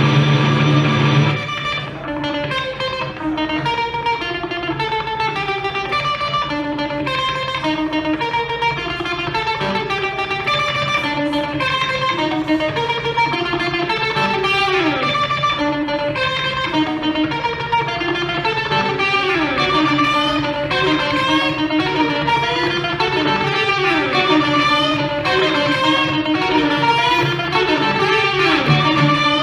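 Live instrumental music on plucked strings: quick short notes in shifting, repeating patterns over a steady low drone, with sliding notes later on. A dense sustained chord breaks off about a second and a half in.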